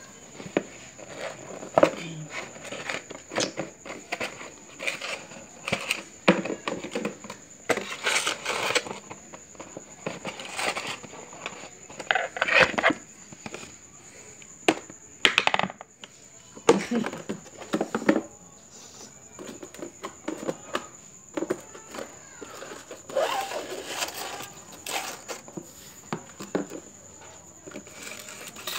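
Irregular taps, knocks and scrapes of a cardboard Tetra Pak juice carton being handled and knocked against a hard floor by a baby.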